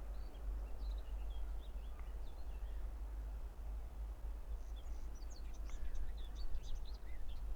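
Small birds chirping in short, quick notes, busiest about five to seven seconds in, over a steady low rumble.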